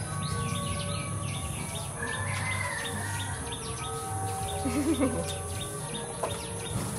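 Small birds chirping rapidly and continuously over a steady high hiss, with a short low wavering call about five seconds in.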